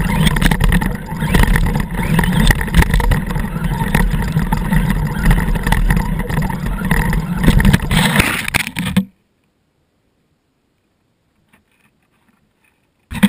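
Axial Wraith radio-controlled rock racer driving through snow, heard through a camera mounted on the truck: its electric motor and drivetrain running, with rumble and buffeting on the microphone. It cuts off abruptly about nine seconds in, leaving near silence, and a brief burst of the same noise returns just at the end.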